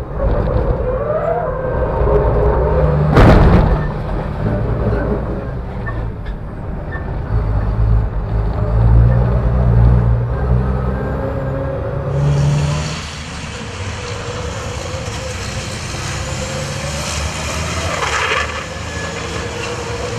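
Racing truck's turbo-diesel engine running hard, heard from inside the cab, its note rising and falling. There is a loud sharp burst about three seconds in, and a hiss from about twelve seconds on.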